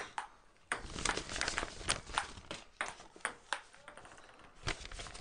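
A run of irregular, sharp clicks and knocks, several a second, with short quiet gaps.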